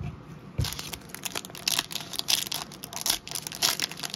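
A foil trading-card pack wrapper crinkling and tearing as it is opened by hand: from about half a second in, a dense, irregular run of crackles, after a couple of soft thumps.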